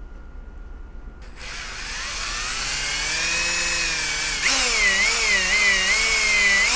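A small power tool's motor starts about a second in and spins up. From about halfway its pitch wavers up and down as it is loaded against the work, typical of sanding or buffing a small part.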